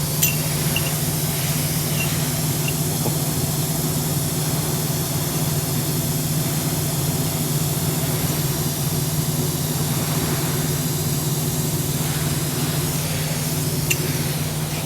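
An engine running steadily at idle with a constant low hum and an even hiss, and a faint click near the start and again near the end.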